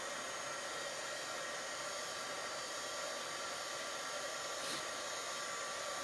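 Hand-held hair dryer running steadily, blowing over wet watercolour paper to dry the paint: an even blowing hiss with a faint steady motor whine.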